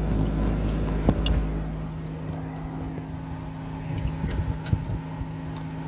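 Car engine running with a steady low hum, with a few light clicks and knocks.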